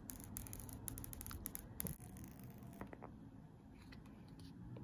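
Faint crackle and rustle of the plastic protective film being peeled off an iPhone 12 Pro Max's screen, thick with small clicks in the first second and a half, then a few scattered ticks as it comes free.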